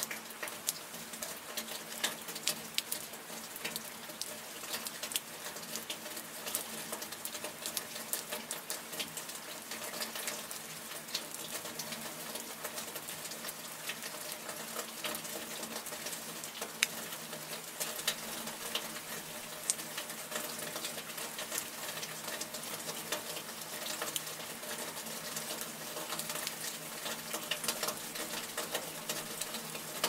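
Steady rain pattering on a window pane, a dense run of tiny drop ticks with a few louder drops here and there.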